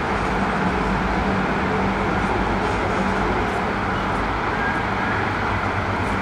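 Steady city street traffic: an even wash of passing-car noise with a faint low hum.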